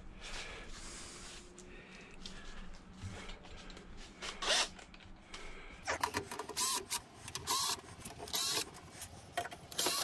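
Cordless drill-driver running in short bursts to back screws out of a microwave oven's metal cabinet, with light metal clatter. The bursts start about halfway through and come every half second to a second.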